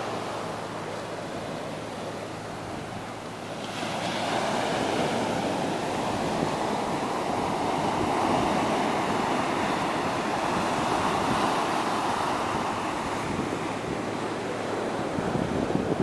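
Atlantic surf breaking and washing up a sandy beach, swelling to a louder rush about four seconds in and easing a little near the end. Wind buffets the microphone.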